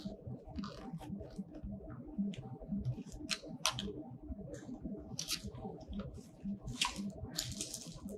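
Cardboard box and plastic packaging being handled and unpacked: scattered rustles, crinkles and light knocks, over a faint steady hum.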